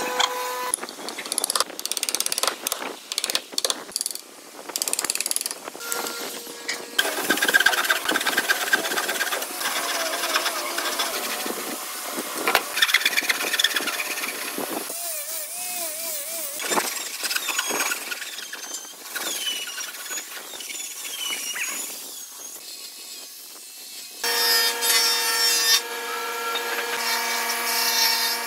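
Hand woodworking sounds in succession: sharp knocks and scraping as wood is worked, then a hand saw cutting wood in repeated strokes with some squeaking. About three-quarters of the way through, a steady hum of a small power tool starts.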